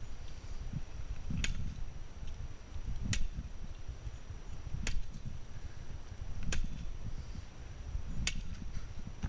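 Machete strokes chopping through trailside vegetation: five sharp whacks, evenly spaced about a second and three-quarters apart.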